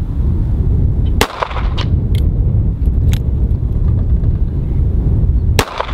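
Two shots from a Ruger LCR .357 Magnum snub-nose revolver fired one-handed, about four seconds apart, each a sharp crack. A steady low rumble runs underneath.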